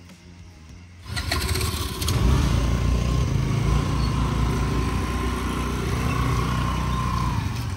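Motor scooter engines running close by, starting up about a second in after a few clicks and then running steadily.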